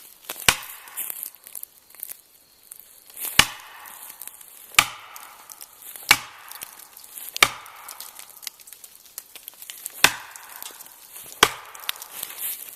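Seven heavy blows struck into wood at an uneven pace, each a sharp chop with rustling in between, typical of axe work or pounding felling wedges while a hazard tree is being cut down.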